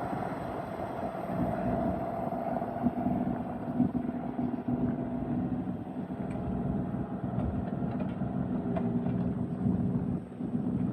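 Bobcat E32 mini excavator's diesel engine running steadily, with a higher whine that fades out about halfway through.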